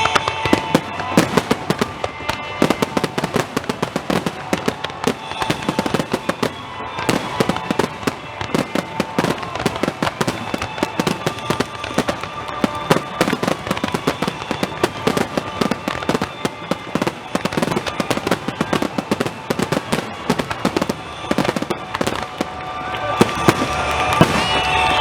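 Aerial fireworks bursting overhead: a dense, continuous crackle of many rapid small pops and cracks, growing louder near the end, over faint background music.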